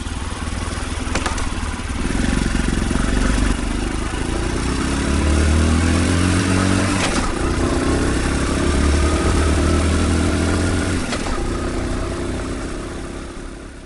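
A vehicle engine running and revving. It builds up over the first couple of seconds, a rising whine comes in through the middle, and it fades away near the end.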